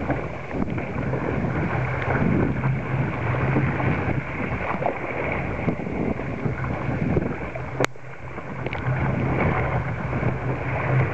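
Wind buffeting the microphone, with water rushing and splashing against the hull of a sit-on-top kayak running through choppy, wind-driven waves. A single sharp tick about eight seconds in.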